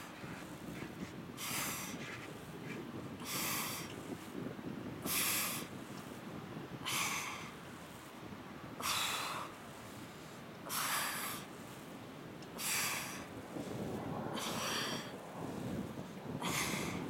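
A woman's sharp breaths out through the mouth, one with each crunch as she curls up, coming evenly about every two seconds, nine in all. Under them runs a steady low hiss.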